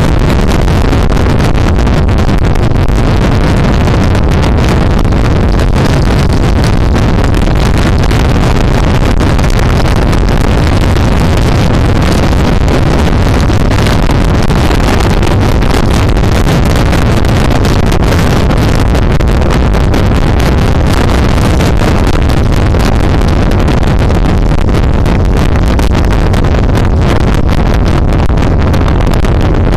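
Steady wind rushing and buffeting on the microphone of a moving motorcycle at road speed, with the engine running underneath, and no change in level.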